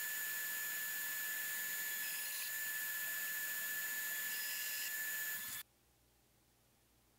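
Belt grinder running with a steady high whine and hiss as a thin umbrella rib is ground against the belt. The sound stops abruptly about five and a half seconds in.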